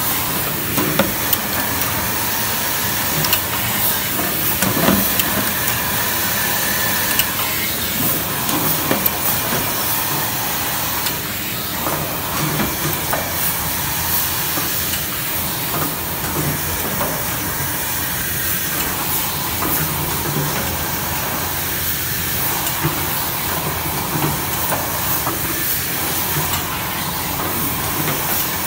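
Dry offset plastic-bucket printing machine running: a steady mechanical hiss and whir, with scattered clicks and clacks.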